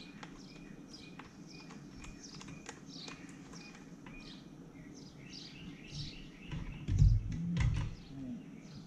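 Birds chirping over a steady low hum, with scattered light clicks of hands handling small parts on a motorcycle. A heavy low bump about seven seconds in is the loudest sound.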